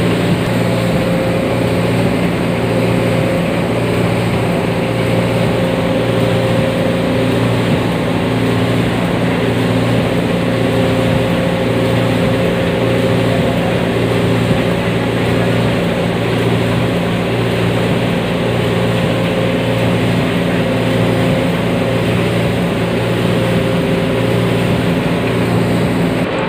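Coal washery machinery running: a loud, steady drone of motors and pumps with a constant hum.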